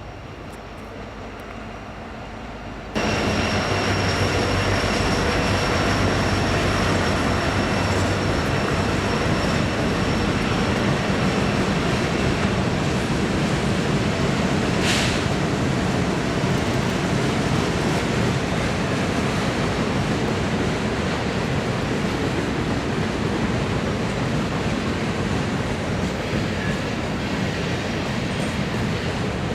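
Freight train rolling past close by: a loud, steady rush of cars on the rails with a faint, high, steady whine of wheels over it. The noise jumps up suddenly about three seconds in.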